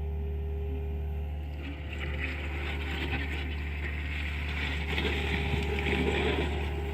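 John Deere excavator's diesel engine running steadily under work, with a rougher rush of working noise over it from about two seconds in, loudest a little after five seconds.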